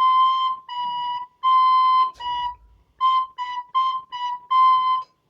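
Soprano recorder playing a simple exercise alternating high C and B (do, si, do, si, then do, si, do, si, do): nine clear whistly notes, the first four held longer and the last five quicker, ending on a held C. A faint knock sounds about two seconds in.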